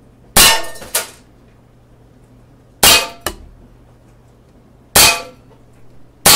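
Four shots from an Umarex Makarov ULTRA CO2 blowback 4.5 mm BB pistol, about two seconds apart. Each is a sharp crack with a short metallic ring as the BB strikes the tin cans. The first two shots are each followed by a smaller knock.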